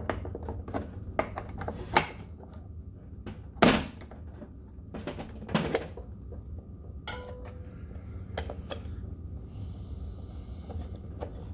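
Scattered knocks, clicks and rubbing as a scooter tire and its aluminium rim ring are handled and worked onto a hub motor, the loudest knock about three and a half seconds in. A low steady hum runs underneath.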